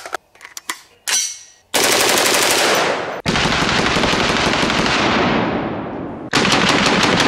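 Full-auto fire from a CMMG MkW-15 rifle in .458 SOCOM: a few faint clicks, then long strings of rapid shots, with a second string starting about six seconds in.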